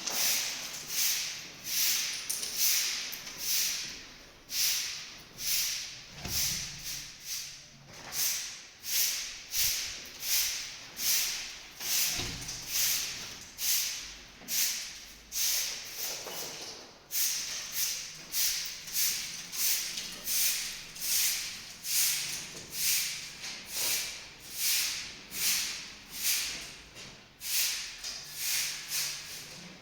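Rhythmic swishing strokes, about three every two seconds, with a brief pause about 17 seconds in.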